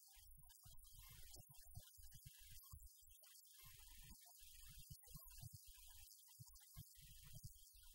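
Near silence with a faint low electrical hum.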